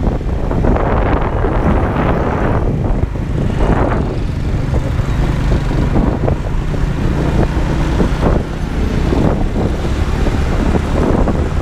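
Motorcycle running along a road, its engine rumbling steadily under wind noise buffeting the helmet microphone, with traffic around it.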